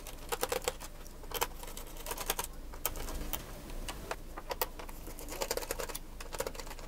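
Irregular light clicks and ticks of a small screwdriver working the screws in a laptop's opened underside, with plastic and metal parts knocking as they are handled.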